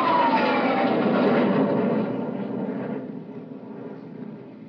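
Sound effect of a jet aircraft flying past: a whine falling in pitch over a loud roar, which fades away over the last couple of seconds.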